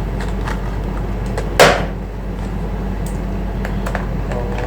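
Light clicks and taps of hands working on a laptop's plastic case, with one sharp hard snap about a second and a half in, over a steady electrical hum.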